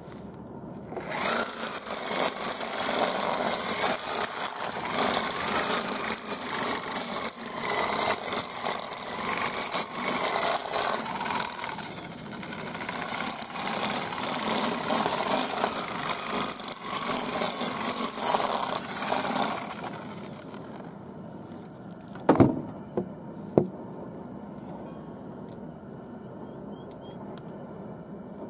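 Barrel-type chicken plucker running with a rattling motor noise as a bird's feathers are stripped inside it, starting about a second in and cutting off after about twenty seconds. Two sharp knocks follow shortly after.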